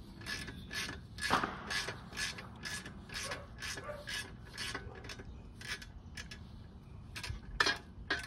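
Socket ratchet clicking in quick repeated strokes, about two or three a second with a short pause near the end, as a bolt on a motorcycle's exhaust heat shield is backed out.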